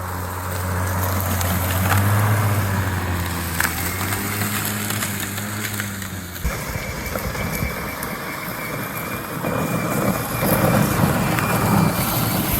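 Lawn mower engine running with a steady hum. About six seconds in, the sound switches abruptly to a rougher, noisier engine sound.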